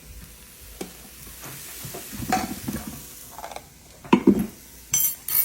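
A utensil stirring and scraping in a pan of sizzling food, with a few loud knocks about four seconds in and two sharp, ringing metal clinks near the end.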